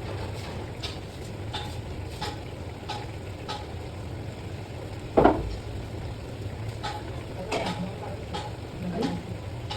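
Stirring in a cooking pan of fish curry: a spatula taps and scrapes against the pan again and again, with one louder knock about five seconds in, over a steady low hum.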